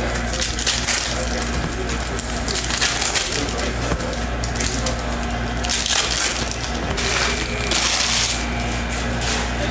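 Plastic trading-card pack wrappers crinkling and tearing as packs are opened and handled, with cards being shuffled, over a steady low hum.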